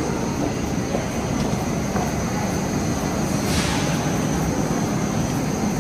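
Steady low rumble of the metro in an underground station passage, echoing off the marble walls, with a brief hiss about three and a half seconds in.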